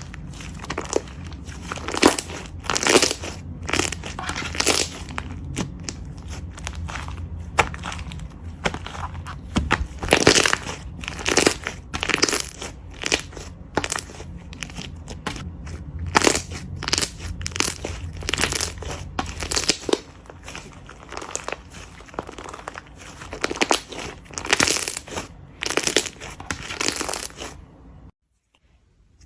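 Slime being squeezed and pressed by hand, giving a dense run of irregular crunching, crackling pops. It stops abruptly near the end.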